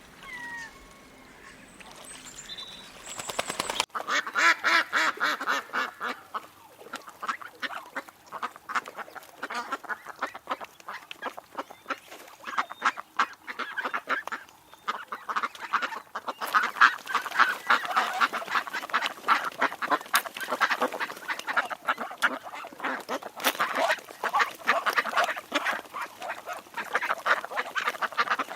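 A flock of ducks quacking, many birds calling over one another in a dense, continuous chatter from about four seconds in. Before that, a quieter stretch holds only a few short calls.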